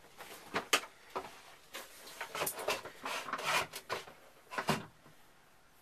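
Irregular clicks, knocks and short rustles of handling in a small wood-panelled boat head, about a dozen over four seconds, the sharpest knocks at about one second in and near the end.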